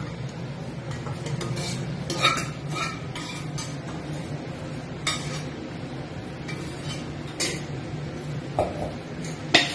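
A steel spatula scraping and clinking against a black kadai and a steel pot as spiced oil and masala are scraped out of the pan, in scattered short scrapes and knocks, with a steady low hum underneath.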